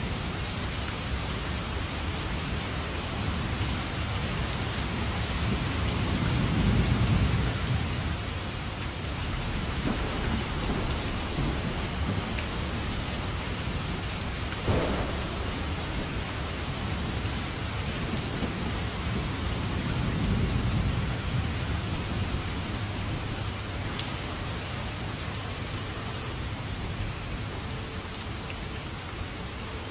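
Heavy rain falling steadily with a continuous hiss, with rolls of thunder rumbling low, loudest about seven seconds in and again around twenty seconds, and one short sharp crack near the middle.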